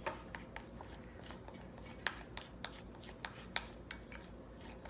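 Faint, irregular small clicks and taps of a utensil stirring a glue-and-lotion slime mixture in a container as activator is added.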